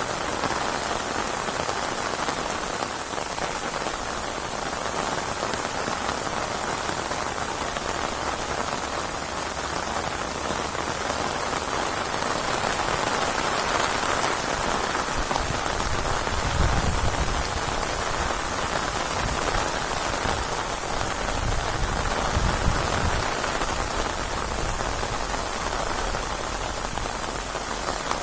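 Steady, dense rain falling on a hard surface. Low rumbles twice, about halfway through and again some five seconds later.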